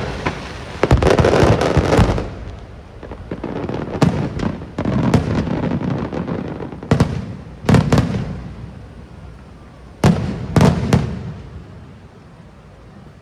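Aerial fireworks shells bursting: a dense volley of bangs about a second in, then single and paired bursts every second or two, each followed by a rumbling echo, dying away near the end.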